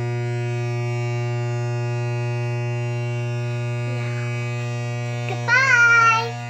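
Modular analog synthesizer oscillator holding a steady low buzzing tone rich in overtones, at one fixed pitch. Near the end a girl calls out briefly over it.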